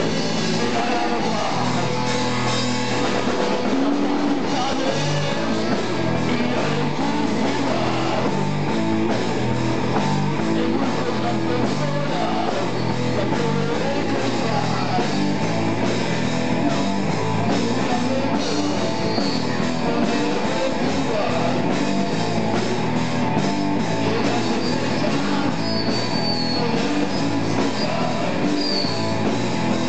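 Live rock band jamming, with electric guitar over a moving bass line, playing loud and without a break.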